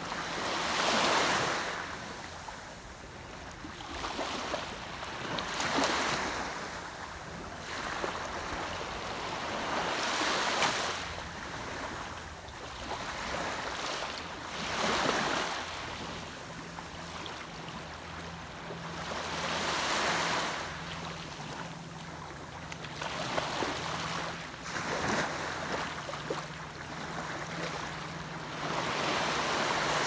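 Small waves breaking and washing up a sandy beach, the surf swelling and ebbing about every four to five seconds.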